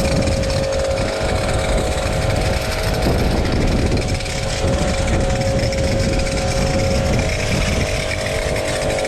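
Electric pressure washer running, its motor holding a steady whine over the hiss of water spraying.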